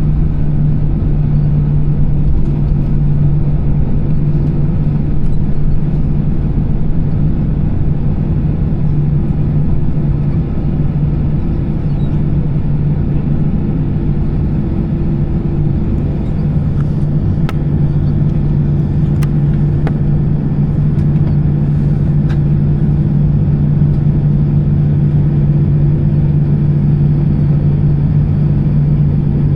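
Steady cabin drone of an Airbus A320-214 in motion: engine hum and rushing air, heard from inside the passenger cabin, with a few faint clicks about midway.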